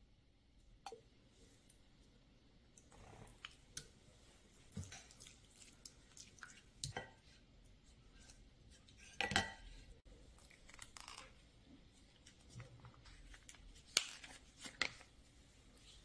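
Wooden spoon scooping tomato sauce from a glass jar and stirring it in a ceramic baking dish: scattered soft scrapes and wet taps, with sharper knocks about nine and fourteen seconds in, the first with a brief ring.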